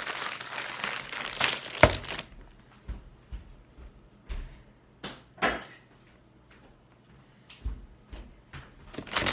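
A shipping package being opened by hand. Its wrapping crinkles for about the first two seconds, with one sharp knock near the two-second mark. Then come scattered light knocks and taps as the box and its contents are handled, and the crinkling starts again at the very end.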